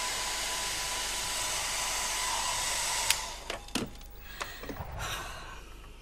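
Handheld electric hair dryer blowing steadily with a faint whine, stopping with a click about three seconds in; a few light knocks follow.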